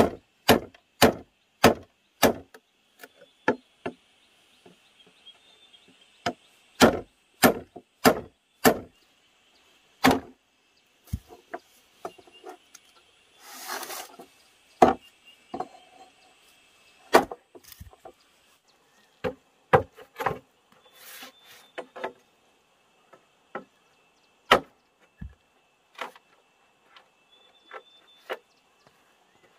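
Repeated sharp knocks of wood being struck, as in chopping or hammering bamboo and timber, coming in runs of about two a second with pauses between. A faint steady high insect drone runs behind, and there is a brief scraping rush about halfway through.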